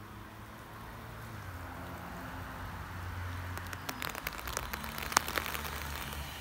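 Cordless drill motor running slowly under load, driving a screw into a vinyl trellis rail; the plastic crackles and clicks as the screw bites in, with one sharp snap about five seconds in.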